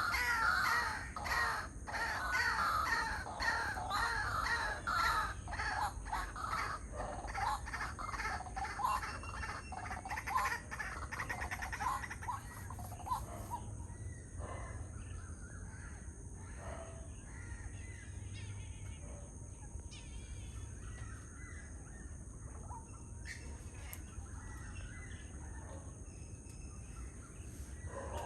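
A pair of white-breasted waterhens chattering: a loud, rapid run of repeated croaking calls for about the first twelve seconds, then fainter, scattered calls.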